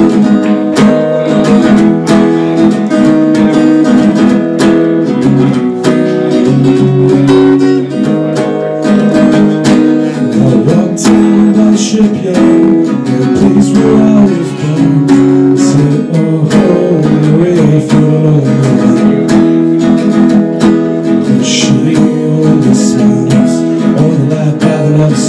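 Acoustic-electric guitar strummed steadily, a solo instrumental passage between sung verses of a song.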